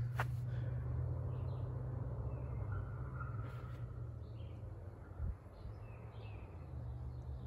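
Birds chirping a few times in short calls, with one brief whistle, over a steady low rumble. A single soft thump comes about five seconds in.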